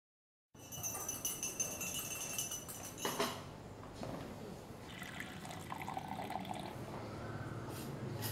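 Coffee-shop sounds: water running and being poured behind the counter, with a sharp clink about three seconds in. It starts after half a second of silence.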